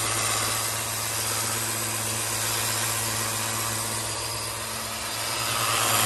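Cordless battery-powered pressure washer running: its pump motor hums steadily under the hiss of the high-pressure water jet blasting mud off a bicycle's chain and cassette.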